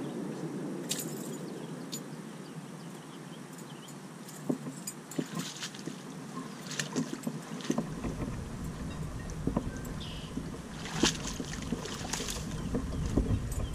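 Wind noise on the microphone with rustling and footsteps through tall grass, and scattered light clicks and knocks; a deeper wind rumble comes in about halfway through.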